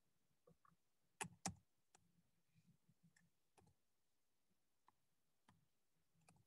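Faint, sparse clicks of a computer keyboard and mouse. Two clearer clicks come just over a second in, close together, followed by scattered light clicks.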